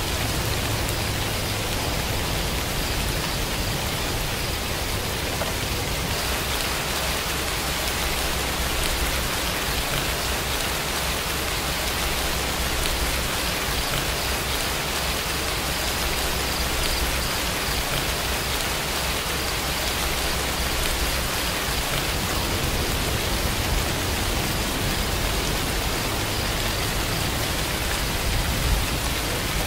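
Steady rain, an even hiss of falling rain with a low rumble underneath and no change in strength.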